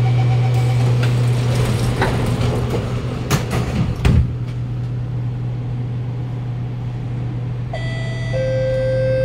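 A Kawasaki Nippon Sharyo C751B metro train stands at a station with its doors open, its equipment giving a steady low hum, with a few sharp knocks about three to four seconds in. Near the end a steady electronic warning tone starts: the door-closing alert.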